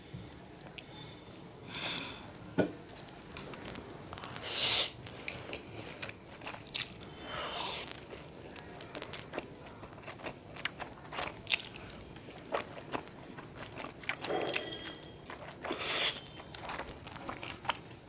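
Close-miked eating of instant noodles: noodles slurped up from chopsticks about five times, with wet chewing and mouth sounds in between.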